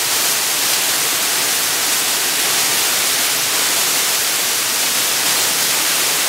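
A waterfall pouring down a rock face into a pool: a loud, steady, even rush of water.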